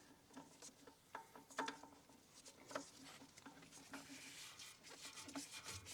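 Near silence with a few faint, scattered clicks and light taps.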